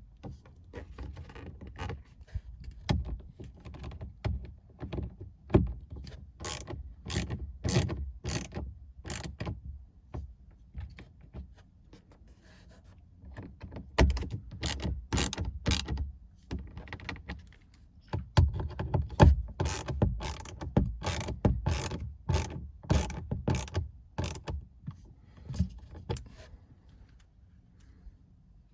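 Ratcheting screwdriver clicking in irregular runs of sharp clicks, pausing twice, as screws are driven to secure a dashboard speaker.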